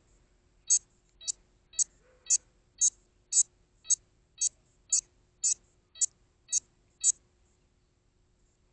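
Tinyhawk 2 micro quadcopter's lost-model beacon beeping while it lies downed in the grass: thirteen short high-pitched beeps, about two a second, stopping about seven seconds in.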